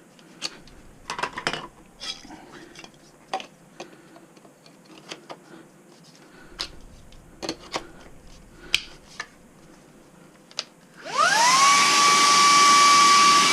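Plastic clicks and knocks of attachments being fitted to a Vacmaster Orson cordless stick vacuum. About eleven seconds in, its motor starts, rising quickly in pitch and settling into a steady whine over a loud rush of air.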